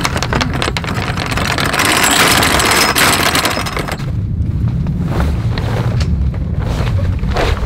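Water rushing and splashing along a sailboat's bow, with wind on the microphone. About four seconds in the hiss drops away suddenly, leaving a low wind rumble on the microphone with a few brief rustles.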